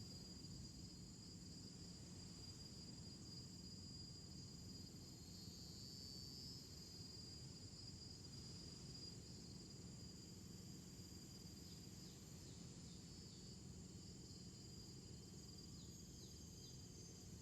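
Faint, steady shrill drone of an insect chorus over a low background rumble, with a few faint short chirps in the last few seconds.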